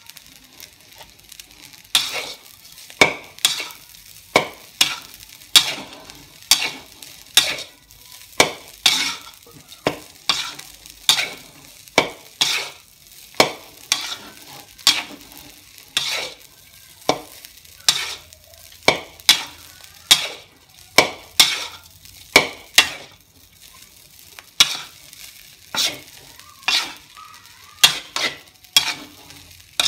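Metal spatula scraping and striking against a steel wok while fried rice is stir-fried over a low sizzle. The strikes start about two seconds in and repeat about one and a half times a second, with a short pause near the end.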